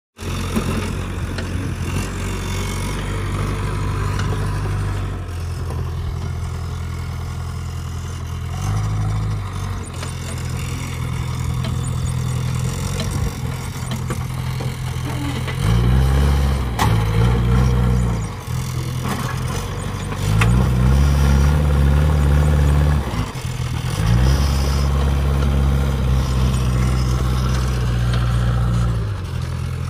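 JCB 3DX backhoe loader's diesel engine running, revving up and dropping back several times.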